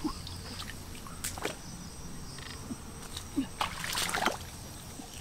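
Feet wading and sloshing through a shallow muddy stream, with a few sharp splashes about a second in and again around four seconds in.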